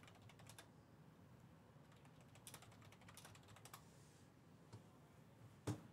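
Faint typing on a computer keyboard: short runs of quick key clicks, with one sharper, louder click near the end.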